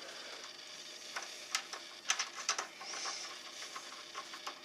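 Scattered light clicks and taps of bolt hardware (washers, bolt and wing nut) being handled and fitted through the wood of a benchwork leg, over a faint steady hiss.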